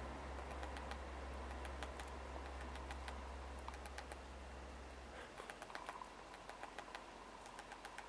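Red-breasted sapsucker pecking at tree bark: faint, irregular light taps, several a second. A low steady hum underneath stops about five seconds in.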